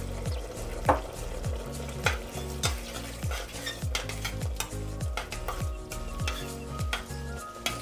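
A spoon stirring nearly cooked quinoa in a stainless steel pot, with repeated light clicks and scrapes of the utensil against the metal. Background music with a steady low beat plays underneath.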